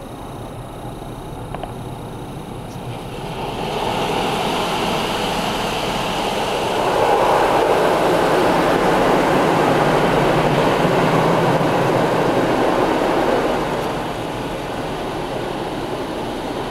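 High-pressure water jets of a Belanger Freestyler touchless car wash spraying over the car, heard from inside the cabin. The spray builds up a few seconds in, is loudest through the middle and eases off near the end.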